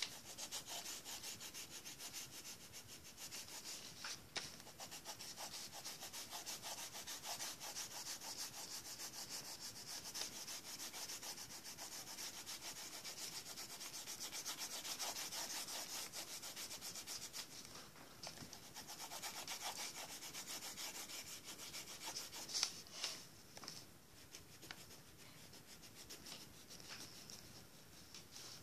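Coloured pencil scratching rapidly back and forth on paper as an area of the drawing is shaded in, a fast, even run of strokes that eases off for a moment about two-thirds through and grows fainter near the end.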